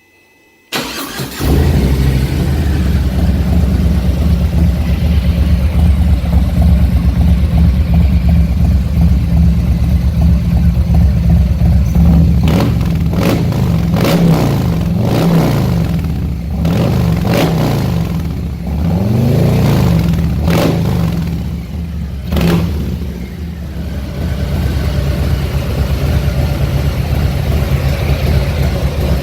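Harley-Davidson Fat Boy V-twin with Vance & Hines 300 Series Eliminator slip-on mufflers and a Stage II high-torque cam, starting about a second in and settling into a loud, deep idle. Between about 12 and 23 seconds in, the throttle is blipped several times, the pitch rising and falling with each rev, before it drops back to idle.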